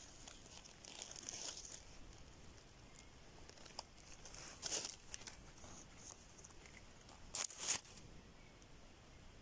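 Dry fallen leaves rustling and crinkling faintly as fingers move through the leaf litter, with a short crackle about halfway through and two more in quick succession near the end.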